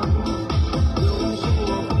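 Hmong song in an upbeat electronic dance arrangement, with a kick drum beating about four times a second under a pitched melody.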